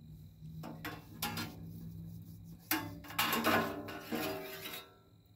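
Thin stainless-steel sheet-metal parts of a camp wood stove clanking and scraping as a piece is fitted inside the stove box. A few clatters come about a second in, then a louder run of clanks with brief metallic ringing from about three to nearly five seconds in.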